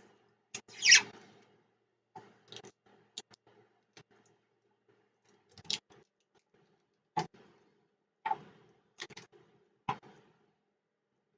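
Irregular light clicks and taps of small tools working on a circuit board, about ten in all, with a louder brief scraping rustle about a second in.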